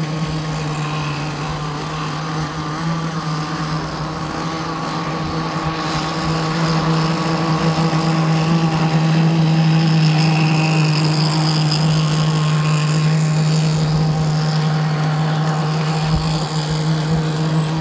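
CMB 26cc two-stroke petrol engine of an RC racing boat, running at speed through its tuned exhaust pipe with a steady pitch. It gets louder about six to nine seconds in as the boat comes nearer, then holds.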